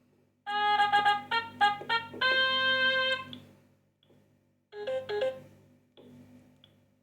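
Sony Ericsson W900i mobile phone playing short preloaded alert tones through its speaker: a quick run of synthesized notes ending on a held note, then after a pause a brief two- to three-note jingle.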